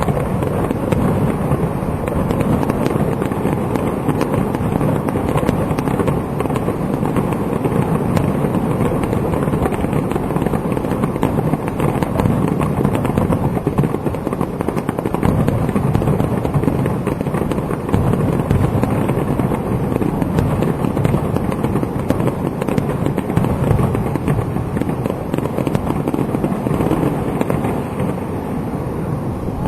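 Fireworks display: a dense, continuous barrage of rapid, overlapping bangs and crackling.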